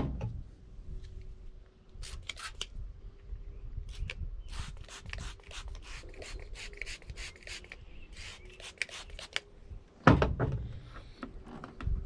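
Hand work on a truck windshield and its rubber seal: a run of quick rubbing and scraping strokes, then one loud thump about ten seconds in.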